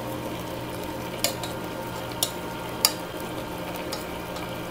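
Chopsticks stirring and turning greens in a metal cooking pot, with three sharp clicks of the chopsticks against the pot about a second apart, over a steady low hum.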